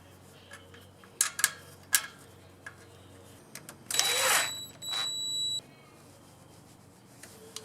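Small metal clicks and knocks from hand work on a small engine's carburetor and choke, three sharp ones between one and two seconds in, then a short loud hiss followed by a steady high-pitched ringing tone lasting about a second and a half.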